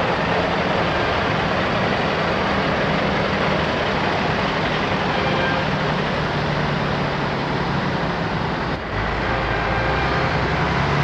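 Simulated truck diesel engines from the sound modules of radio-controlled model trucks, running steadily over a dense hall background noise, with a brief break about nine seconds in.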